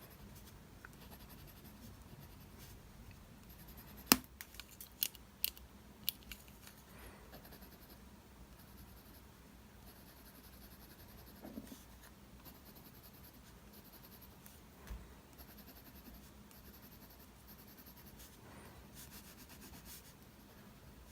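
Faint scratching of a mechanical pencil's lead shading on paper, with a few sharp clicks or taps about four to six seconds in.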